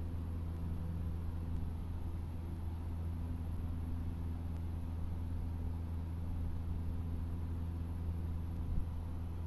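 Cessna 152's four-cylinder Lycoming O-235 engine and propeller droning steadily at a constant power setting, heard inside the cockpit in flight.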